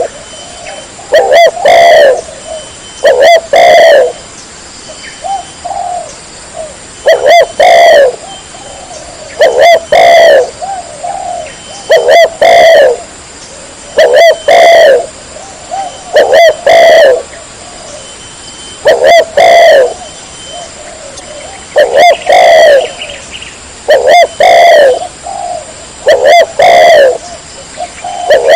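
Spotted dove cooing over and over, loud, a short phrase of several coo notes about every two seconds.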